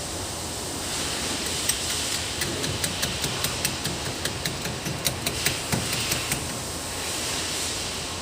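Metal tool work on a bushing: a run of sharp, irregular metallic taps and clicks, about two to three a second, starting a couple of seconds in and stopping near the end, over a steady hiss.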